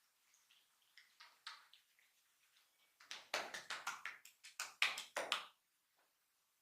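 A barber's hands percussively tapping on a client during a massage: a few soft taps, then a quick run of about a dozen sharper, louder taps, about five a second, that stops suddenly.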